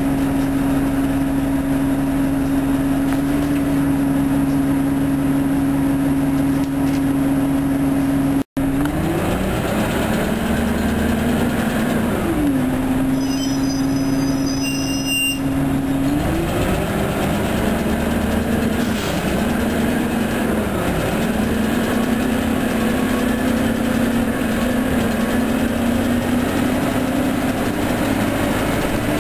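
Orion transit bus engine and drivetrain running with a strong steady whine. After a split-second drop-out about eight seconds in, the whine's pitch climbs and dips again and again as the bus changes speed.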